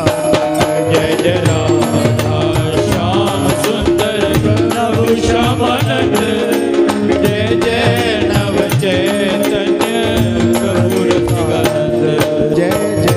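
Devotional kirtan music: a hand drum and other percussion keep a steady beat under a melody line.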